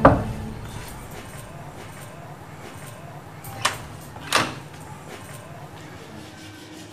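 Two knocks on a door, about three-quarters of a second apart, the second a little louder.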